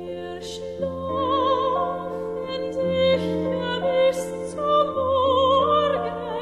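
Background music: an operatic voice singing held notes with vibrato over sustained accompaniment chords that change about every two seconds.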